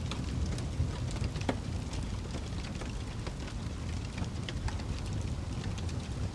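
Wood fire burning in a fireplace: a steady low rumble of the flames with frequent small crackles and pops, one sharper pop about one and a half seconds in.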